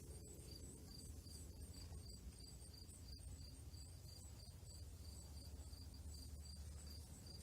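Crickets chirping faintly in a steady rhythm, about two to three high chirps a second, over a low background rumble.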